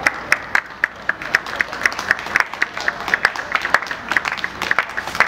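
A small group clapping hands, many separate sharp claps at an uneven pace of several a second.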